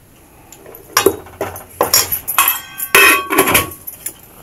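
Steel ladle knocking and scraping against a stainless steel kadhai as moong flour is stirred into ghee for roasting. After about a second of quiet comes a run of sharp metallic clinks and scrapes with short ringing, the loudest about three seconds in.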